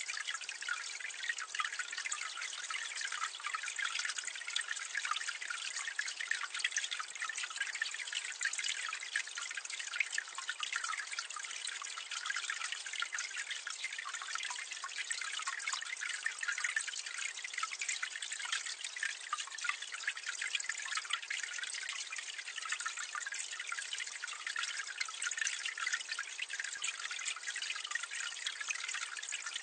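Water pouring from a drain outlet, splashing and trickling steadily with a dense patter of small splashes, heard from a medium distance.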